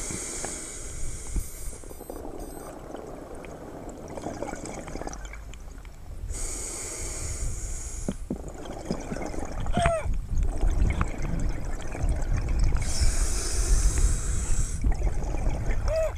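Scuba diver breathing through a demand regulator: a long hissing inhalation about every six to seven seconds, with rumbling exhaled bubbles in between that grow louder in the second half. Two short whining tones rise and fall, one about ten seconds in and one at the end.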